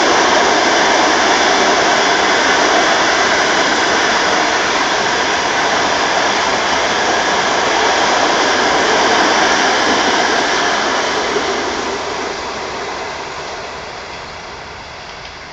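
Russian Railways passenger coaches of a 23-car train rolling past on the rails: a steady, loud rushing of wheels on track that fades away over the last few seconds as the tail coach passes and recedes.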